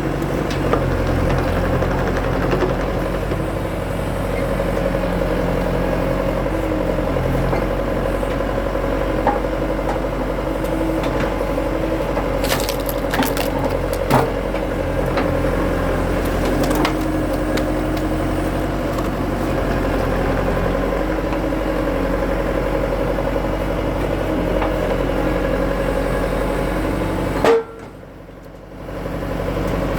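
Skid steer engine running steadily with a steady whine, while wood splits under a hydraulic splitter attachment with a few sharp cracks and splintering. The machine sound drops out briefly near the end.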